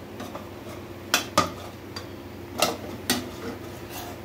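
Metal potato masher clinking against a metal pot while mashing soft cooked vegetables: a few sharp, irregular knocks over a steady low hum.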